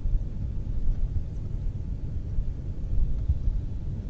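Wind rumbling on a camera microphone on a bass boat's deck: a low, uneven rumble with no steady tone.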